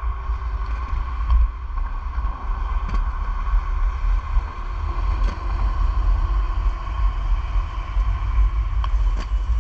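Wind buffeting the microphone while rolling along a concrete path on inline skates, with a steady hum and a few light clicks under the rumble.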